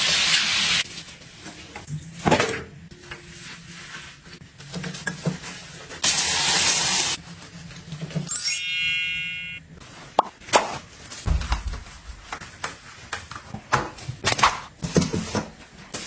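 Household handling sounds: two hissing bursts, a brief squeaky tone about halfway through, and a string of clicks and knocks as objects are set down and moved.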